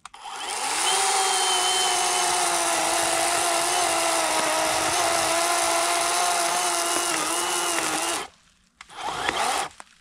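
A Worx 40-volt battery electric chainsaw spins up and cuts into the trunk of a still-living poplar. Its motor whines steadily, the pitch dipping slightly under load, for about eight seconds before stopping suddenly. A brief second burst follows near the end.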